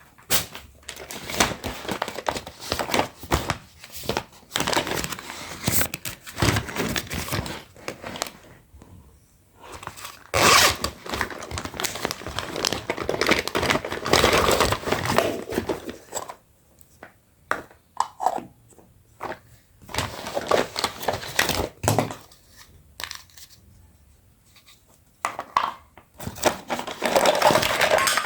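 Plastic packaging crinkling and tearing in irregular bursts as a toy set is unboxed, with separate sharp clicks and taps in the later part.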